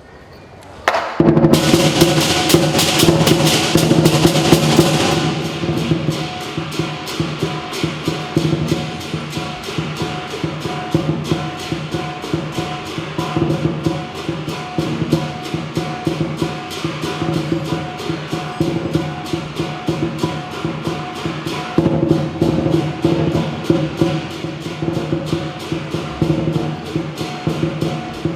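Lion dance percussion (big lion drum, cymbals and gong) strikes up suddenly about a second in, loud and cymbal-heavy for the first few seconds, then settles into a fast, steady beat.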